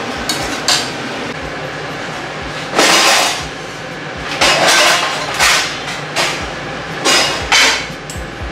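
Kitchen drawer and utensils being handled: about five short clattering, scraping noises over a steady background hiss.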